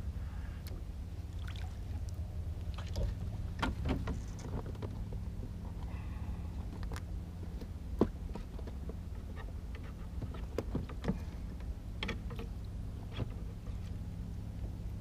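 Scattered clicks and knocks of fishing tackle being handled aboard a small boat, over a steady low hum. One sharp click about eight seconds in is the loudest sound.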